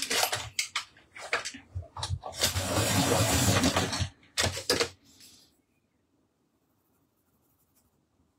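A Derwent Chromaflow coloured pencil being sharpened in a hand-cranked Dahle 133 pencil sharpener. There is some handling clatter, then about two seconds of continuous grinding as the blades cut the wood and lead, which stops about five seconds in.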